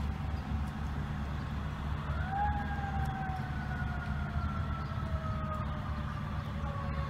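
Fire engine siren: one wail that rises sharply about two seconds in, then slowly winds down, over a steady low rumble.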